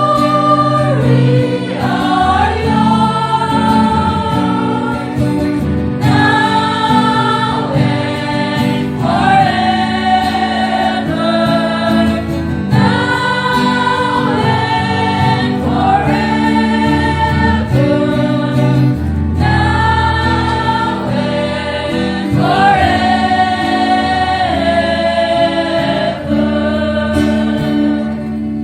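Church choir singing a hymn in phrases of held notes over sustained low accompaniment.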